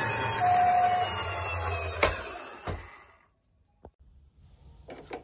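Toy ambulance rolling along a wooden board, its wheels rumbling, while its electronic two-tone hi-lo siren sounds briefly at the start. A sharp knock comes about two seconds in, and the rolling fades out soon after.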